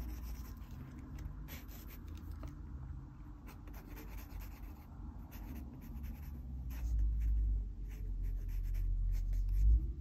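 A 0.5 mm mechanical pencil's coloured lead scratching across sketchbook paper in short, irregular strokes as a portrait is drawn. Under it runs a low rumble that swells twice in the second half.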